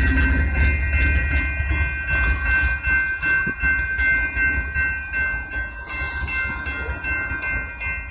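Railroad crossing bell ringing steadily at a grade crossing, while a BNSF freight train rumbles past. The train's rumble is loud at first and fades after about two seconds.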